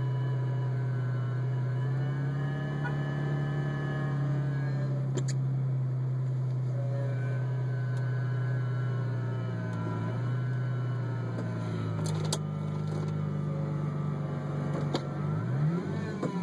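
Roush Stage 1 Mustang's engine idling steadily, its pitch drifting slightly, with a few sharp clicks. Near the end it is revved briefly, the pitch rising and falling once.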